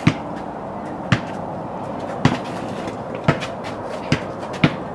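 Basketball bouncing on hard ground: six sharp thuds, about a second apart, the last two coming closer together.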